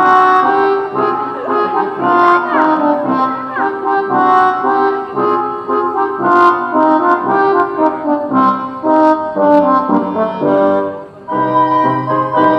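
Background music led by brass, horn and trombone-like tones playing a moving melody.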